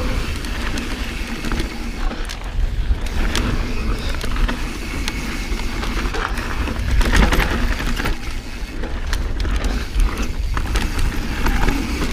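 Transition Patrol mountain bike rolling fast down a dry, loose dirt trail: a steady rush of tyre and wind noise with frequent clicks, knocks and rattles from the bike over the bumps.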